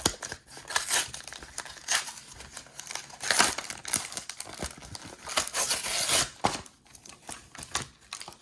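Packaging of a Pokémon trading card blister pack being torn open and crinkled by hand, in a run of irregular rips and rustles, loudest about three seconds in and again around five to six seconds in.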